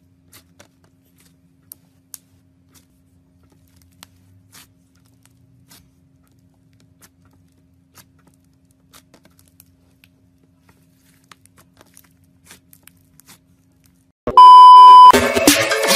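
Faint, scattered sticky clicks and crackles of slime being squeezed and stretched, over a faint steady hum. Near the end a loud steady beep tone cuts in for under a second, then loud music starts.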